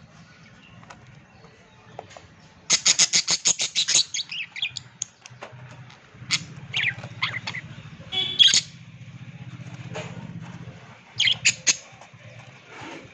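Small pet parrots chirping and squawking, with a rapid run of sharp, high chirps a few seconds in and then scattered calls.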